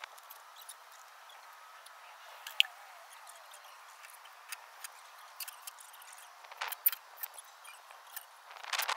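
Sped-up sound of outdoor fence-building work: faint, scattered clicks and knocks. The sharpest comes about two and a half seconds in, a few more follow near seven seconds, and a denser clatter starts just before the end.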